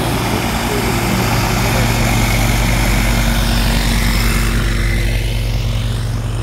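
Light aircraft's piston engine and propeller running steadily close by: a low, even drone with a hissing rush on top that fades near the end.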